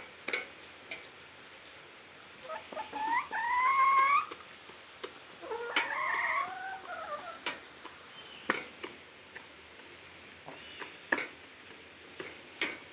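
Chickens calling: a drawn-out call rising in pitch about three seconds in, the loudest sound, then a longer wavering call around six seconds, with a few sharp clicks scattered between.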